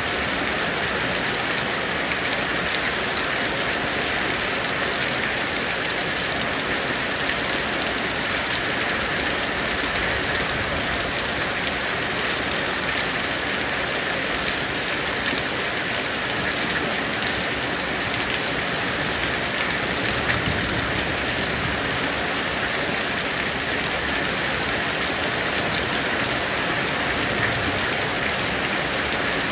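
Heavy rain falling steadily, an even hiss of drops on surfaces that does not let up.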